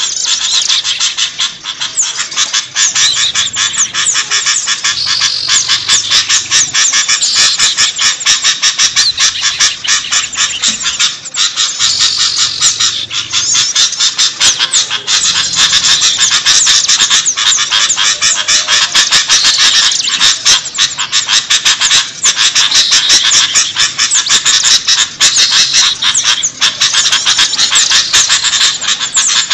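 Dense, continuous chorus of many small birds of mixed species chirping and chattering at once, a bird-lure recording for attracting small birds.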